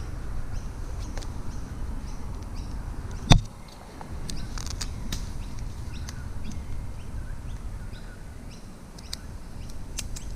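Small birds chirping in short high calls through the second half, over a steady low rumble. A single sharp knock about three seconds in is the loudest sound.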